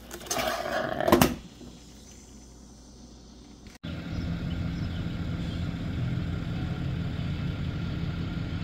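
A short loud burst of noise, loudest about a second in, then after a quiet pause a pickup truck's engine idling with a steady low hum.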